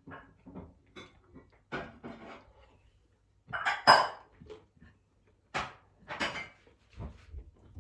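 Dishes and metal utensils clinking and knocking in a scattered series of light clatters. The loudest clink comes a little under halfway in and rings briefly.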